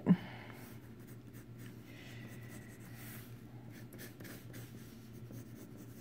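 Graphite pencil sketching lightly on paper: faint, irregular scratching strokes.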